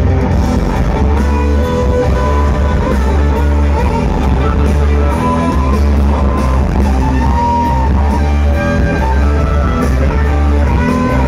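Rock band playing live through a large PA: electric guitars, bass and drums together, with a heavy bass low end.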